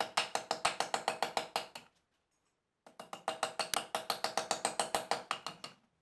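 Rapid, even mechanical clicking, about seven clicks a second, in two runs with a pause of about a second between them.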